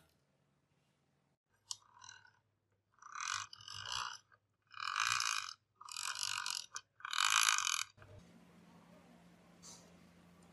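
Rusty, unlubricated bevel gears of an antique hand drill grinding and rattling as they are turned, in about five short bursts. Near the end only a faint low hum remains.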